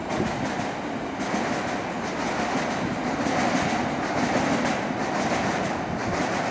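A passenger train passes along a raised embankment, with the steady rumble of its wheels on the rails.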